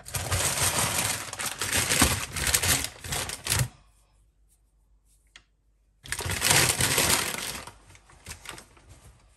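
Shopping bags rustling and crinkling as groceries are unpacked: a dense crackle for nearly four seconds, a pause, then a second spell of about a second and a half that tails off into a few small clicks.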